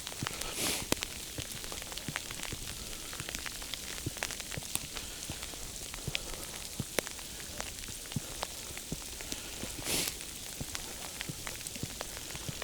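Sleet pellets ticking irregularly on the hiker's clothing and the snow around him, over a steady hiss. Two short louder hisses come about a second in and near the end.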